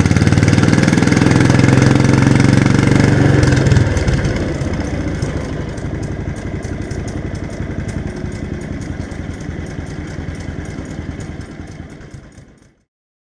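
Small garden tractor engine running loudly. It drops back about four seconds in, then fades away and cuts to silence near the end.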